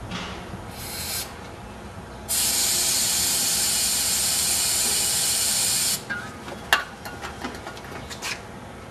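Aerosol can of starter fluid sprayed into the gap between a large off-road tire's bead and its rim: a short burst about a second in, then a steady hiss of about four seconds that stops sharply, charging the tire with flammable vapour for seating the bead by ignition. A few sharp clicks follow near the end.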